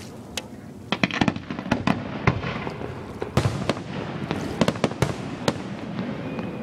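Aerial fireworks bursting over a lake: a quick run of sharp bangs and crackles starts about a second in and goes on in close clusters.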